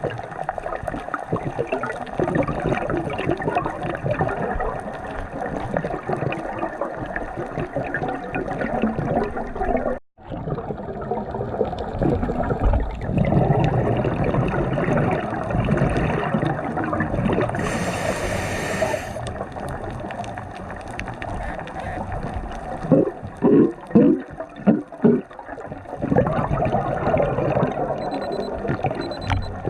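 Water gurgling and sloshing, broken by a brief cut about ten seconds in, with a few short, louder sounds near the end.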